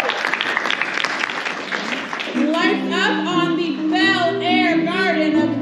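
Applause fading out, then about two and a half seconds in, music starts: held piano chords with a repeating, wavering melody line above them.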